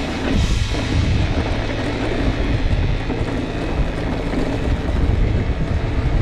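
Wind rushing over an action camera's microphone, with the rumble and rattle of a hardtail mountain bike riding down a rough trail.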